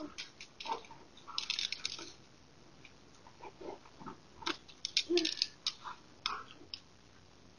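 Irregular scuffs and crunches of footsteps and a dog's paws running on a concrete driveway and gravel, with two busier clusters about a second and a half in and near the middle.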